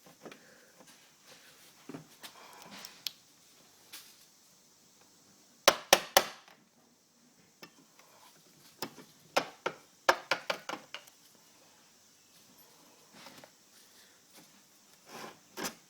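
Wood chisel working into a wooden door jamb: scattered sharp taps and knocks, several in quick runs, as wood is cut away for the latch.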